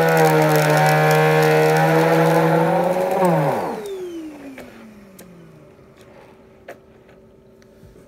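Canister vacuum cleaner running steadily, then switched off about three seconds in; its motor whine falls in pitch and fades as it spins down over about two seconds. A single sharp click follows a few seconds later.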